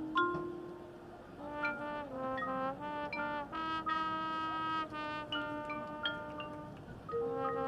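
Marching band playing its field show: brass holding sustained chords that change every half second to second, with mallet percussion notes struck near the start.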